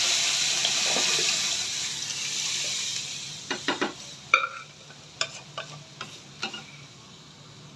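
Boiled dal poured into hot oil tempering (tadka) in a kadhai, sizzling loudly, then dying away about three and a half seconds in. After that come several knocks of stirring against the pan.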